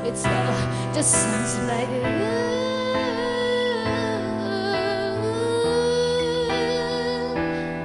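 A female singer holding long, wavering notes over a live band with bass guitar and drums, in a slow pop ballad.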